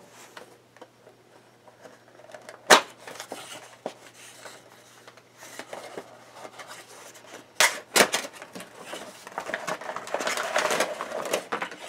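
Cardboard Funko Pop box being handled and opened: a few sharp taps and clicks, once about three seconds in and twice close together near eight seconds. Then crinkly rustling builds over the last couple of seconds as the end flap is opened and the plastic insert is worked out.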